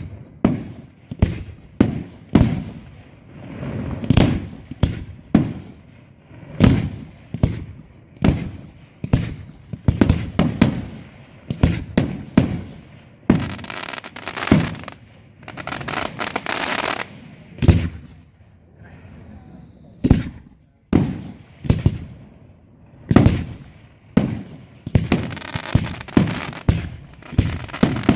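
Aerial firework shells bursting in quick succession, about one or two bangs a second, each with a short echoing tail. Twice the bangs give way to a few seconds of dense crackling.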